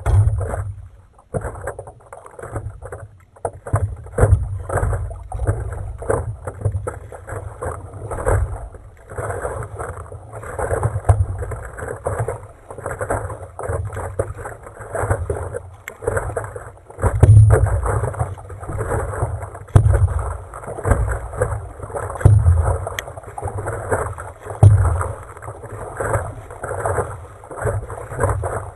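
Paddle strokes splashing and water slapping against a paddleboard, heard from a microphone on the board close to the water, with low thumps from wind buffeting the microphone. The splashes come in an uneven rhythm, about one every second or two.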